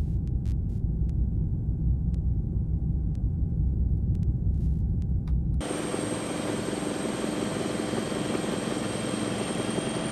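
A low steady rumble, which about five and a half seconds in switches abruptly to the noise of a light turbine helicopter in flight: rotor and engine noise with a steady high-pitched turbine whine.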